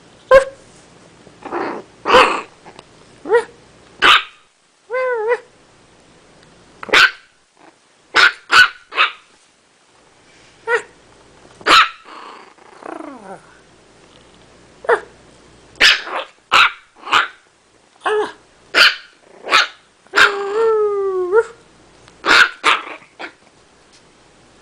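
Chiweenie puppy barking: over twenty short, sharp yaps with uneven gaps between them, broken by two longer wavering yelps, one about five seconds in and one near the end.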